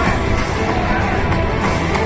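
Music played over a stadium's loudspeakers, with crowd noise underneath.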